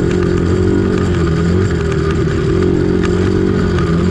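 Dirt bike engine running steadily, with no revving.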